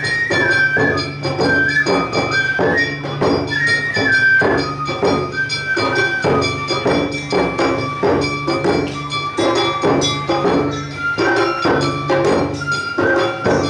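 Live Awa odori music: a shinobue bamboo flute melody over drums and a ringing hand gong, beating out a brisk, steady rhythm.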